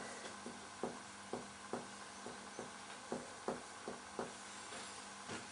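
Finger-on-finger percussion of the chest wall: a run of light, short taps, about two a second, made while percussing inward toward the apex beat to find the left border of relative cardiac dullness.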